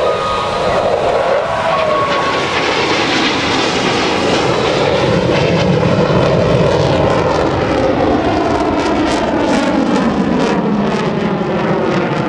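F-16 Fighting Falcon fighter jet flying past during a high-G manoeuvre, its engine noise loud and steady with a phasing, sweeping whoosh, and a rasping crackle building in the second half.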